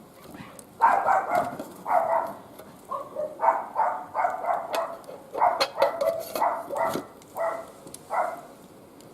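A dog barking repeatedly, about a dozen loud barks in quick runs, starting about a second in and stopping near the end.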